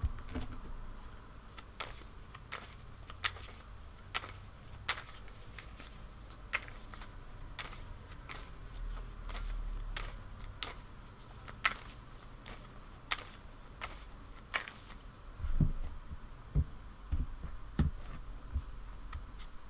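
A deck of oracle cards shuffled by hand: irregular soft snaps and clicks of the cards sliding and riffling against each other, with a few dull knocks near the end.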